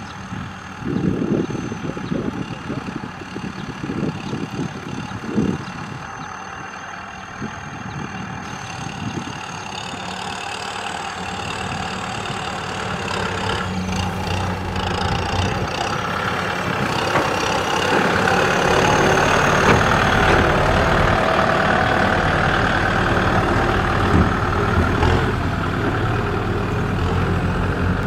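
Diesel engine of a Kubota M6040SU tractor running as it drives across a field, steady, growing louder partway through and staying loud to the end. Irregular low thumps in the first few seconds.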